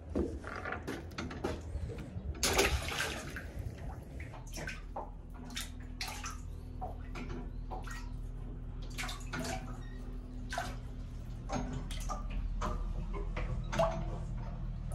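Water splashing and sloshing in a boat's live well as a yellow grouper is dropped in, with a large splash about two and a half seconds in, then repeated small splashes over water running in from the well's supply hose. A low steady hum runs underneath.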